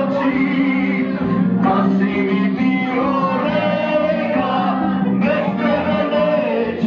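A man singing into a microphone over loud amplified instrumental accompaniment, party music with a sustained backing.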